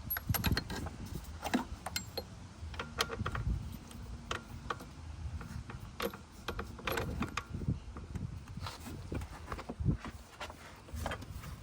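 Scattered, irregular metallic clicks and knocks as an engine mount and its bracket are pulled and shifted by hand to line up the bolt holes.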